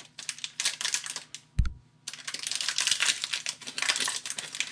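Foil wrapper of a Pokémon TCG booster pack crinkling and crackling in the hands as the pack is opened and the cards are taken out. A few scattered crackles come first, with one soft thump about a second and a half in, and then a dense run of crackling from about two seconds in.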